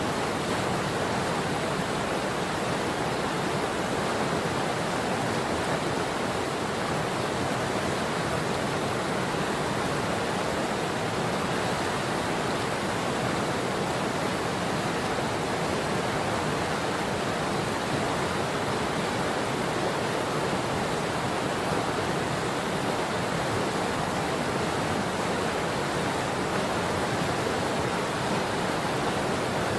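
Patapsco River water rushing in a steady, unbroken hiss.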